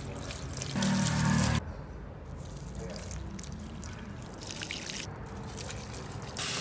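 Water poured from a glass jug into the soil of potted plants, trickling and splashing, loudest about a second in. Near the end a louder, steady rush of water starts.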